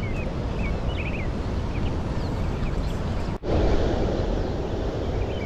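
Steady rushing wind on the microphone, with small birds chirping in short, repeated calls. The sound cuts out for an instant about three and a half seconds in.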